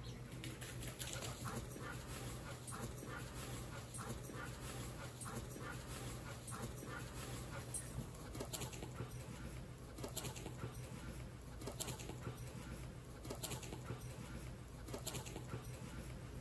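A dog's faint panting and snuffling close by: a scatter of soft, short breaths over a steady low hum.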